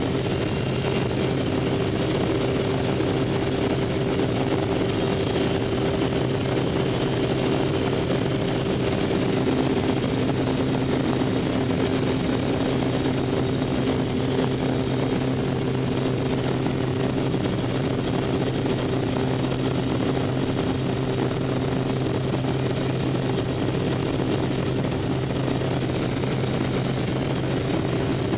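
Propeller engine of a skydiving jump plane, heard from inside the cabin as a loud, steady drone. Its hum holds a few constant low tones over a rush of noise, with no change in pitch.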